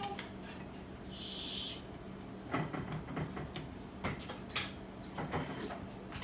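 Metal drop-in quad rail halves being handled and worked into place on an AR-15's barrel nut and delta ring: a short scraping hiss about a second in, then scattered light clicks and knocks of metal parts, over a steady low hum.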